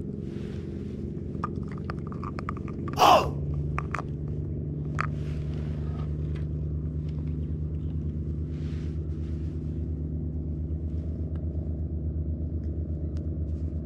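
An engine running steadily nearby, a low drone with an even pulse. Over it come light clicks and taps as hands handle small plastic bait tubs and rig a soft worm on a jighead. About three seconds in there is one short, loud squeal that falls in pitch.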